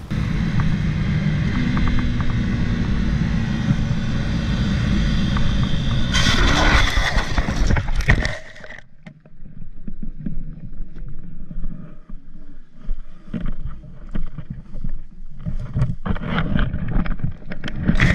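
Yamaha MT-03 parallel-twin motorcycle running with heavy wind noise on the rider's camera, then, about six seconds in, a loud scraping slide of about two seconds as the bike goes down in a lowside crash. After that the engine noise is gone and only quieter, uneven wind and rustling remain.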